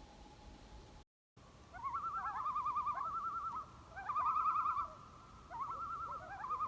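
Repeated phrases of quavering, whistled bird-like trills, starting just after a brief cutout about a second in.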